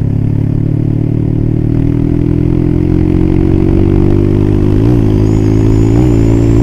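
Yamaha Scorpio's single-cylinder four-stroke engine pulling steadily through a Creampie aftermarket muffler, its pitch rising slowly as the bike gains speed, with a couple of brief wobbles about five and six seconds in. The exhaust note is bassy rather than loud and raspy.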